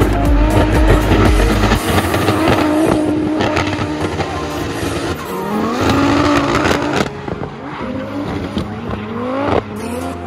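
Audi Quattro S2 drift car's engine revving hard with tyres squealing as it drifts. The engine note climbs twice and cuts off sharply, about seven seconds in and again near the end.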